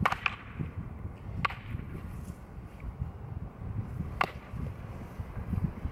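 Short staffs striking in a sparring bout, giving sharp clacks: two in quick succession at the start, one about a second and a half in, and one about four seconds in.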